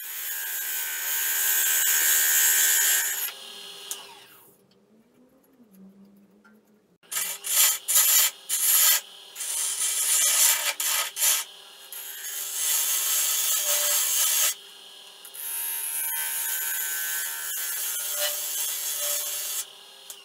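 Hollowing tool cutting inside an algarrobo colorado vase blank spinning on a wood lathe: a loud rasping scrape in several runs. It starts with a steady cut, pauses for a few seconds, continues as a string of short strokes and ends with two longer steady cuts. The lathe's steady hum runs underneath.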